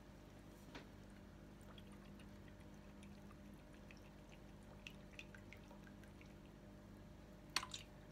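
Near silence: room tone with a faint steady low hum and a few faint ticks, then a brief sharp knock or clink near the end.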